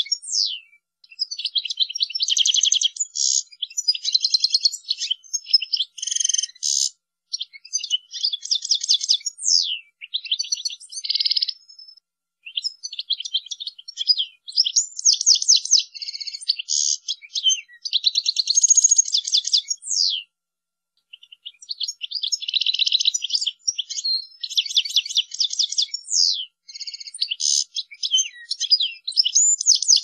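European goldfinch singing: fast twittering phrases of rapid rolling trills and sharp downward-gliding notes, high-pitched, in bursts broken by brief pauses about 12 and 21 seconds in.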